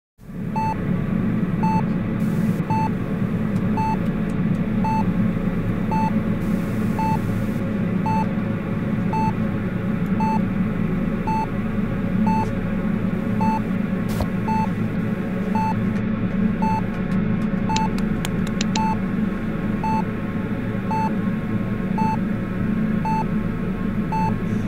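Hospital heart monitor beeping steadily, a short high beep about three times every two seconds, over a loud continuous low drone.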